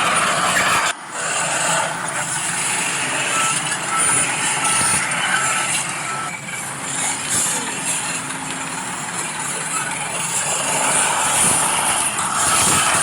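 Heavy-equipment engine noise running steadily, with a string of short reversing-style beeps about a quarter of the way in. The sound drops out briefly about a second in.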